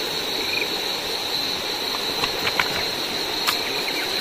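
A steady high-pitched chorus of night insects, such as crickets, over the even rush of running river water, with a few small clicks in the second half from the wet net and its weights being handled.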